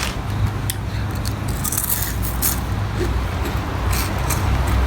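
Eating sounds close to the microphone: chewing with scattered sharp clicks and a brief hiss about two seconds in, over a low steady hum.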